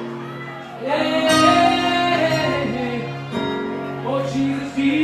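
Live gospel worship music: a voice sings long, sliding notes over sustained chords held by the band. It swells back up about a second in.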